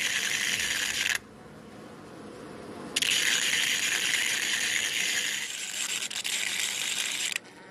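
Homemade electric discharge machine sparking as its thin copper electrode erodes a slot into heat-resistant stainless steel under liquid: a dense, high crackling buzz. It stops abruptly about a second in, resumes near three seconds, and cuts off again just before the end.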